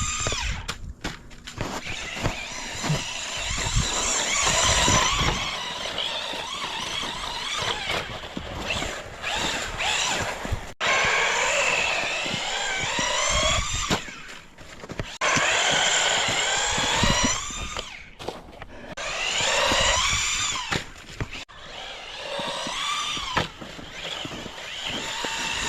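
Small electric RC truck's motor and gears whining, rising and falling in pitch with repeated bursts of throttle, with short breaks between runs.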